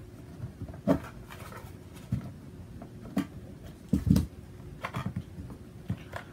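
About half a dozen light, separate clicks and knocks from a Hera Arms polymer rifle magazine being worked apart by hand as its lever is slid out.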